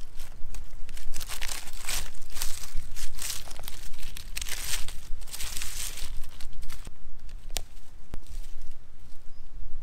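Gloved hand scraping and sweeping dry leaf litter and twigs across the forest floor: a run of irregular rustling, crackling strokes, with one sharp snap or click about seven and a half seconds in and a quieter stretch near the end.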